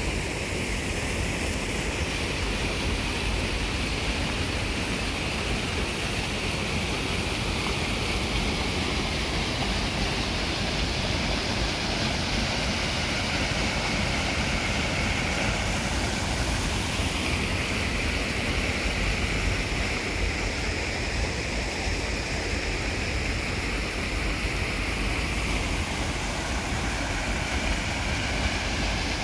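Water pouring over a small concrete weir into a pool: a steady rushing with a low rumble underneath.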